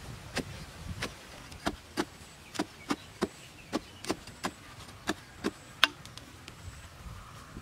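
A narrow-bladed digging tool on a wooden handle jabbed again and again into hard earth to dig out a small hole, about two sharp strikes a second. The strikes stop about six seconds in, the last one the loudest.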